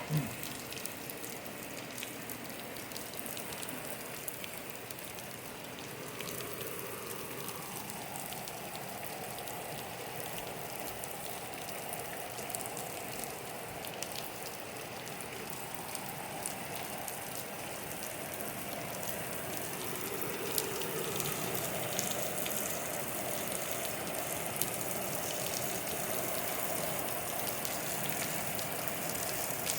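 Steady rain falling on a hard surface, thick with the small ticks of individual drops, growing a little louder as it goes.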